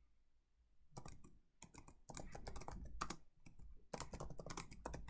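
Typing on a computer keyboard: faint keystrokes start about a second in, a few at first and then a quick steady run.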